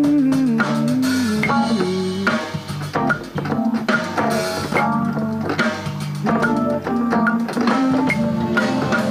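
A song arrangement playing: a drum-kit beat under keyboard chords and a moving bass line, with the harmony of the rap section being played through on an arranger keyboard.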